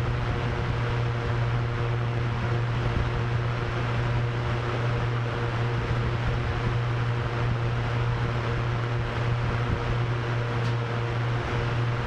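Drone propellers humming steadily with wind rushing over them: a constant low hum with a few fainter higher tones, under an even windy hiss.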